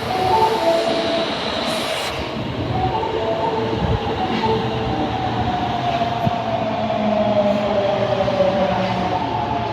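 Osaka Metro Tanimachi Line subway train: the last notes of its door chime, a short hiss of air about two seconds in, then the train moving off with a drawn-out motor whine that slowly falls in pitch.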